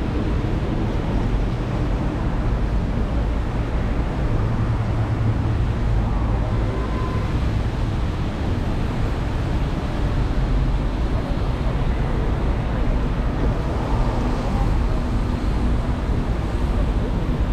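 Steady city street ambience, mostly the low rumble of road traffic.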